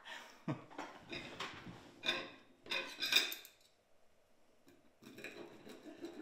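Fork and knife clinking and scraping on a dinner plate in several short bursts, with a quiet pause about four seconds in.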